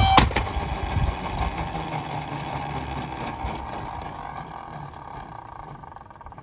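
Die-cast toy minicars rolling on a plastic slope track: a clack just after the start, then a steady rolling rumble that fades away over several seconds.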